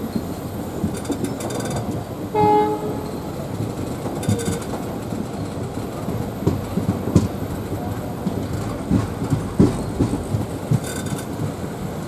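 Passenger train coaches rolling slowly over curving track and points, a steady rumble broken by irregular wheel clicks and knocks over rail joints, which come more often in the second half. A short locomotive horn blast sounds once, about two and a half seconds in.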